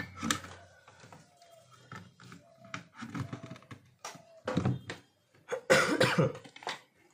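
Clicks, knocks and thunks of cables and connectors being handled as a desktop SMPS's plugs are connected to a motherboard, with a louder stretch of handling noise about six seconds in.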